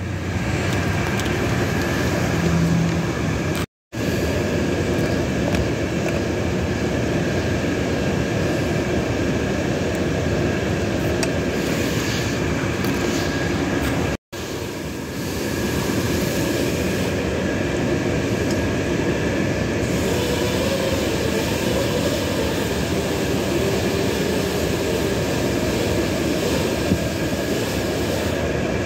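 Steady, loud machine-like background noise with a faint constant whine. It cuts out completely twice for a moment, about four and fourteen seconds in.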